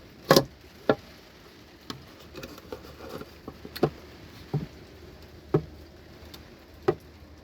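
Scattered sharp knocks and clicks as bookshelf-speaker parts are handled during a strip-down. About seven irregular taps, the loudest about a third of a second in.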